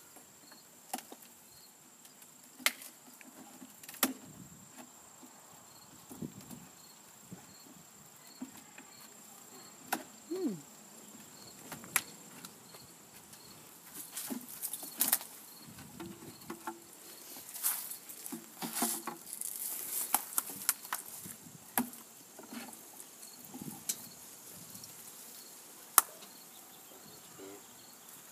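Insects trilling steadily in a high, even tone, with a faint chirp repeating at a regular beat. A bee buzzes past now and then, its pitch falling as it passes once about ten seconds in. Sharp clicks and knocks come at irregular moments, the loudest about four, twelve and twenty-six seconds in.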